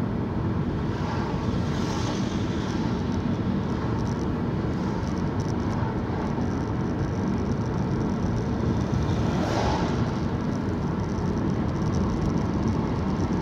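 Steady engine and tyre noise inside a moving Toyota car, with two brief whooshes about two and nine seconds in.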